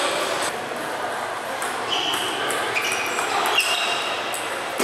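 Busy table tennis hall: ping-pong balls clicking off tables and rackets in nearby games, with distant chatter and a few short high squeaks.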